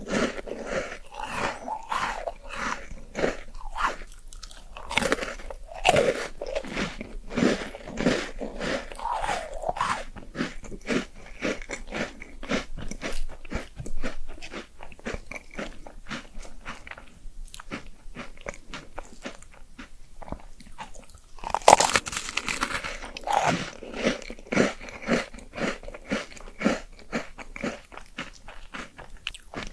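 Close-miked eating sounds: a person chewing and biting, with a continual run of small wet crunches and clicks. There is a louder spell of crunching about two-thirds of the way through.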